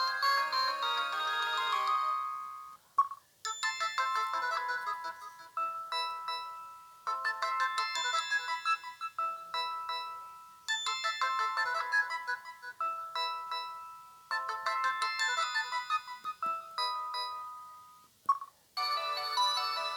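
Samsung SGH-M150 mobile phone playing its built-in ringtones through its small speaker. One melody dies away over the first three seconds, then comes a short beep. A new melodic ringtone follows and repeats the same phrase four times, each about three and a half seconds long. After a second short beep, another ringtone begins about a second before the end.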